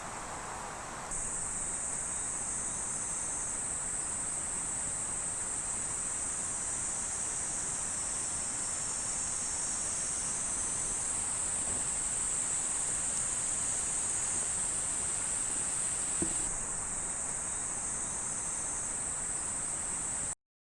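Insects calling in a steady, high-pitched chorus over a faint background hiss. It comes in suddenly about a second in, thins out about four seconds before the end, and cuts off just before the end.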